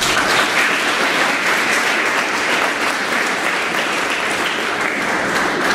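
Audience applauding: a dense clapping that starts suddenly and eases slightly near the end.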